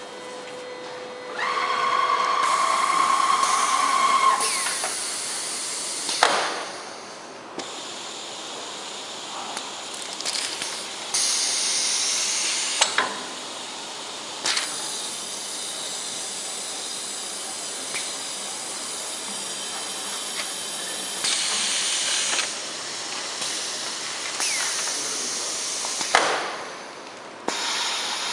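CTP platesetter running, a steady hissing noise that shifts in level in stages. A whining tone sounds for a couple of seconds near the start, and a few sharp clacks come at intervals.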